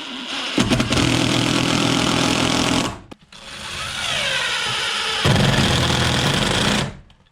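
Power drill driving screws in two runs of about two and a half and three and a half seconds, with a short pause around three seconds in. Each run grows louder partway through as the screw seats, and the drill stops about seven seconds in.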